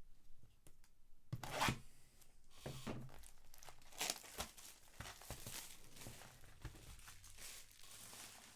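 Trading card packs being torn open by hand, a series of rips and crinkling wrapper rustles, the loudest rip about one and a half seconds in.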